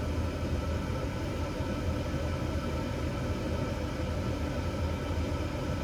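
Newly replaced inducer fan motor of a Carrier 58DLA gas furnace running with a steady hum, during the ignition sequence while the hot surface igniter heats before the gas valve opens.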